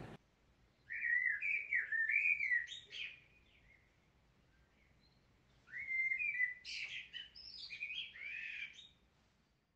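A bird chirping and twittering in two short phrases of quick rising and falling notes: one about a second in, the other around six seconds in.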